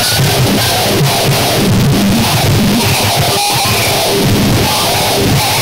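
Harsh noise music: a loud, unbroken wall of distorted noise across the whole range, with stuttering, shifting low tones underneath.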